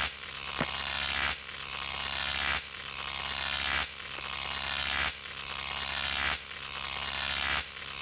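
Synthesized intro sound: a steady low hum under a hissing swell that builds and cuts off about every second and a quarter, with a single click about half a second in.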